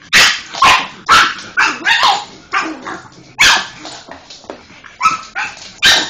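A pug barking at a Hoover vacuum cleaner: about a dozen loud, short barks in quick, uneven succession.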